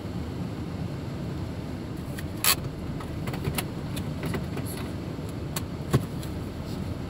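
Steady low rumble of a car heard from inside its cabin while it sits in traffic. Scattered short clicks and knocks cut through it; the loudest comes about two and a half seconds in, with another sharp one near the end.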